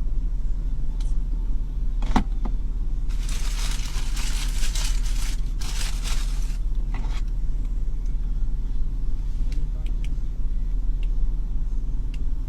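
Steady low rumble of a stationary car heard from inside the cabin. A sharp click comes about two seconds in, then a few seconds of rustling hiss from about three to six and a half seconds.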